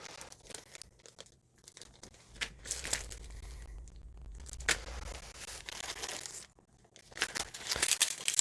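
Plastic packaging crinkling and crackling as small accessories are handled and unwrapped, with scattered sharp clicks.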